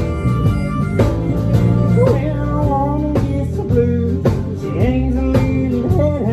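Country band playing live over a steady beat of about two strokes a second, with a melody line bending in pitch above it.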